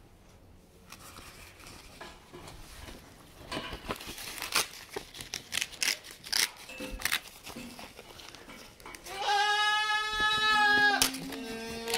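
A paper sign crinkling and crackling in irregular bursts as a goat mouths and tugs at it, then goats bleating. One long call about nine seconds in is the loudest sound, and another bleat starts just before the end.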